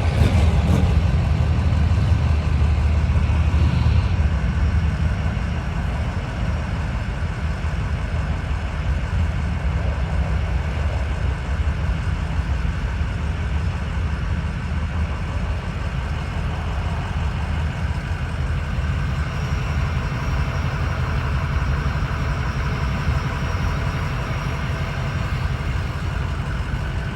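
A truck engine running steadily with a low rumble, a little louder for the first few seconds.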